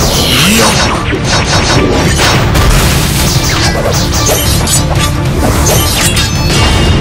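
Dramatic soundtrack music under a sword-fight sound-effects track: repeated sharp blade clashes and hits, one after another.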